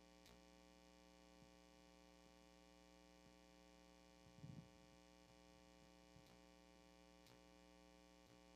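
Near silence: a pause with only a faint steady hum.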